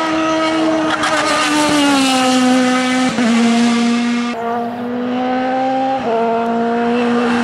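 High-revving racing car engines, a sports prototype and then a single-seater, taking a hairpin bend on a hill-climb course. The strong engine note drops in pitch about two seconds in as the car slows for the bend. It changes abruptly a few times where separate runs are joined.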